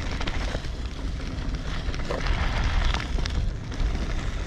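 Wind buffeting an action camera's microphone as a small bike rolls over a dirt track, a steady deep rumble with tyre noise and a few light clicks and rattles.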